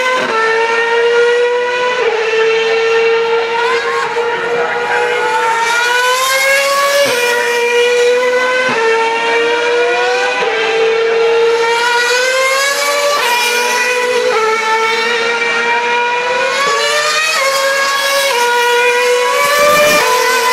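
2011 Formula 1 cars' 2.4-litre V8 engines at high revs, accelerating up through the gears. Each rising note drops sharply at an upshift, many times over, and more than one car is often heard at once.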